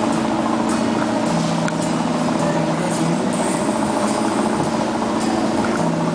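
A riverboat's engine running steadily, a constant drone with a few held low tones, heard on board while the boat cruises.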